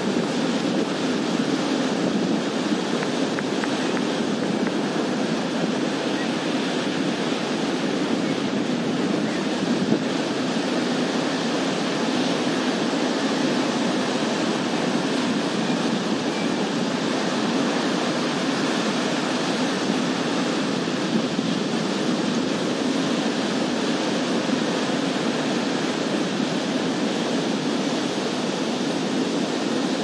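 Ocean surf breaking on a beach: a continuous, steady rushing wash of waves.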